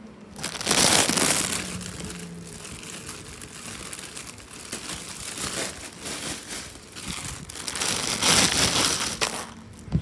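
Packaging crinkling and rustling as items are handled and rummaged out of a goodie bag, louder about a second in and again near the end, with lighter crackles between.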